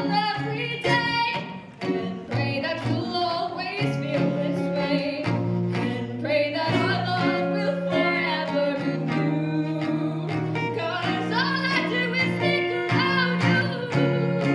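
Live song performance: a singing voice with vibrato over guitar accompaniment and sustained low notes.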